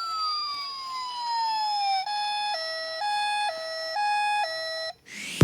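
Toy police car's electronic siren: a wail slides down in pitch, then a hi-lo two-tone alternates about every half second before cutting off near the end. A short rising sweep follows at the very end.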